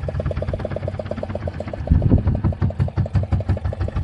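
Fishing boat's engine running at idle, a steady rapid chugging of about nine beats a second, with a brief louder low surge about two seconds in.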